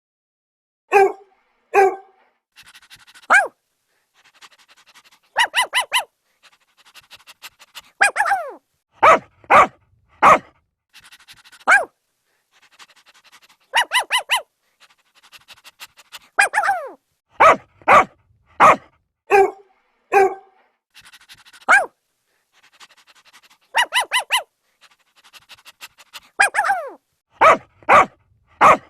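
Dog barking in separate bursts with silent gaps: single barks and quick runs of two to four, several of them sliding down in pitch like a yelp.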